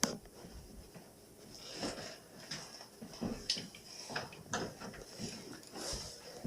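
Scattered light clicks, knocks and scrapes of hands and tools working on a Kenmore dishwasher's fittings during its removal, the sharpest knocks right at the start and about three and a half and four and a half seconds in.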